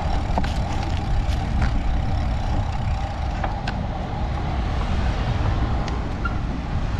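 Continuous low rumble of wind and road noise with motor traffic going by, a steady hum running under it and a few light scattered clicks.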